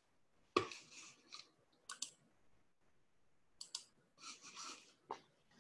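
Faint, irregular clicks and short scraping or rustling noises close to the microphone, about six of them spread over a few seconds.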